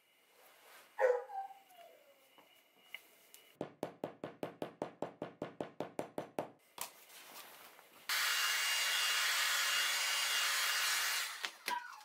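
Leather rubbed with a short squeak, then a small mallet tapping rapidly on a leather strap, about seven taps a second for three seconds. Near the end, a steady loud rushing noise runs for about three seconds and cuts off abruptly.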